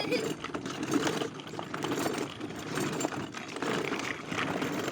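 A ride-on toy car running, its drive mechanism and wheels making a continuous irregular clicking rattle.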